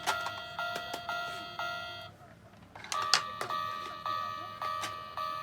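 Plarail toy railroad crossing's electronic warning bell chiming 'kan-kan', about two strokes a second. It stops about two seconds in and starts again a second later with a few sharp clicks.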